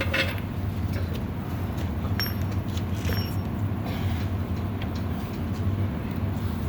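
A steady low hum with a few faint clicks about two and three seconds in.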